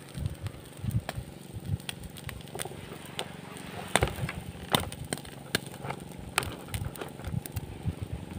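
Open cooking fire under a roasting whole needlefish, crackling with irregular sharp pops, the two loudest about four seconds in and just under a second later.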